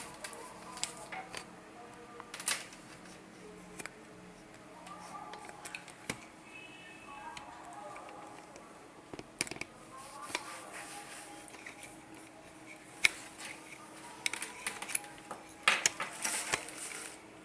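Irregular clicks, taps and knocks of a small lavalier microphone and its parts being handled and tested close up, the sharpest taps coming near the end.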